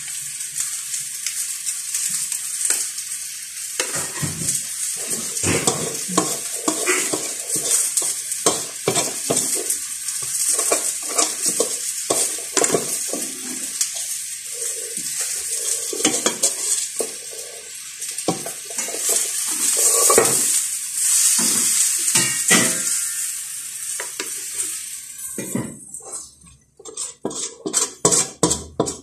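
Metal spoon and knife scraping and clinking against a pan while stirring and scraping a sticky pinipig (pounded rice flake) mixture, many short strokes. A steady high hiss sounds under the scraping and stops near the end, leaving only the clinks.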